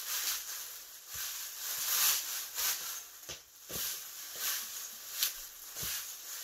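Gloved hand rubbing and tossing torn sheets of roasted laver in oil in a stainless-steel bowl: uneven crisp rustling and crinkling from the seaweed and the plastic glove, with no steady rhythm.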